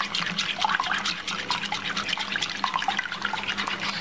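Wire balloon whisk beating raw eggs in a glass bowl by hand: quick, even clinking of the wires against the glass with the liquid egg sloshing, as the eggs are beaten toward a froth.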